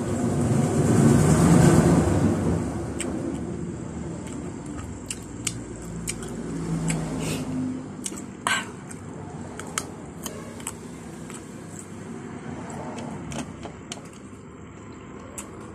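Close-up chewing of soft ripe papaya with bagoong, with wet mouth smacks and many sharp clicks. A low rumble swells and fades in the first few seconds.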